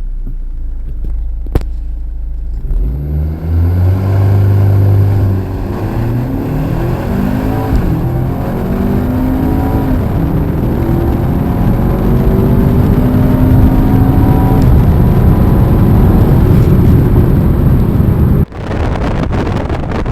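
2012 Audi A4 2.0T's turbocharged four-cylinder engine idling low, then revving hard under full-throttle acceleration from about three seconds in. The pitch climbs and drops back at each of several upshifts of the 8-speed Tiptronic automatic, with a rushing noise building as speed rises. The sound cuts off suddenly near the end.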